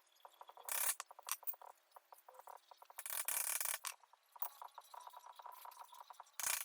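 Flathead screwdriver scraping and prying at the tabs of a front sprocket lock washer: three short scrapes, about a second in, around three seconds in and near the end, between light metal clicking.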